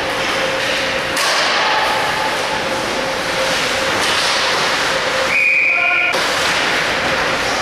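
Ice hockey practice on a rink: skates scraping the ice and pucks and sticks knocking over a steady hiss of rink noise. About five and a half seconds in, a whistle is blown once for under a second, as play is stopped at the net.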